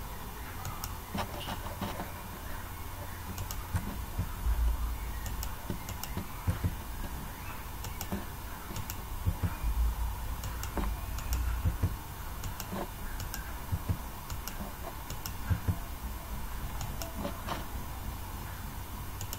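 Scattered clicks of a computer mouse and keyboard, irregular and spread throughout, over a steady background hum.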